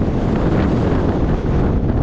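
Heavy wind buffeting the microphone over the low, steady rumble of a moving snowmobile.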